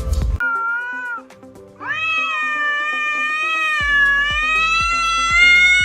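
A cat meows: one short meow, then a long drawn-out meow held for about four seconds, over background music with a beat.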